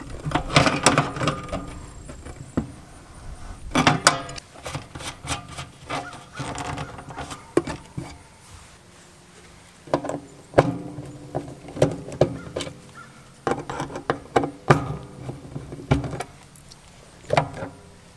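Hand tools on electrical fittings: pliers and a screwdriver working a locknut and the screws of a PVC conduit body under a sheet-metal sub panel box. Irregular clicks, knocks and clatters come every second or few, some with a short metallic ring.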